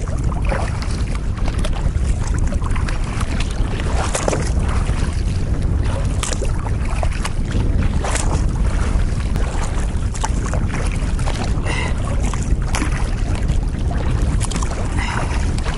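Strong headwind buffeting the kayak's bow-mounted camera microphone in a steady low rumble, with short splashes of water against the kayak every second or two as it is paddled into the wind-driven chop.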